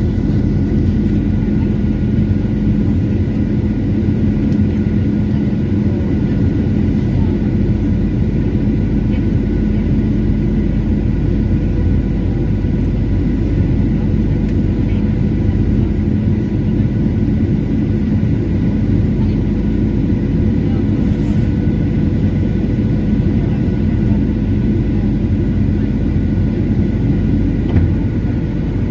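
Steady cabin noise inside a Boeing 737-900 airliner on approach: a low rumble of its CFM56 turbofan engines and airflow over the fuselage, with a few steady whining tones held throughout.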